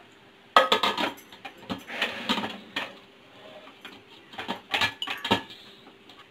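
Aluminium pressure cooker lid clanking and scraping as it is set on the pot and turned shut by its handle: sharp metal knocks in three bunches, the loudest about half a second in.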